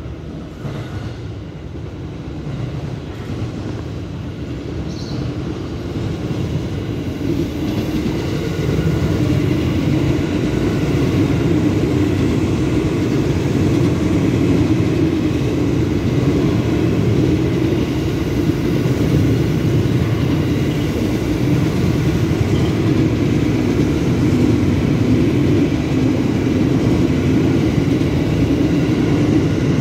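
Ex-JR 205-series electric commuter train approaching and rolling past close by. The rumble of its wheels on the rails grows louder over the first several seconds, then holds steady as the cars go by.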